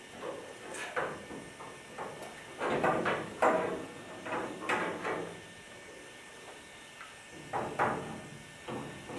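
Irregular knocks, clunks and scraping of hands-on work with tools and hardware, in bursts with short pauses.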